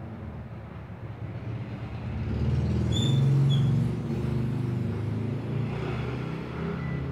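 A motor engine's low rumble that swells about two seconds in and is loudest around three to four seconds, with a brief high squeak about three seconds in.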